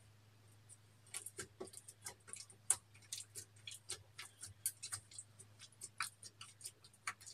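Metal spatula scraping pressed highlighter powder out of a compact: a quick, irregular run of small dry scratches and ticks that starts about a second in.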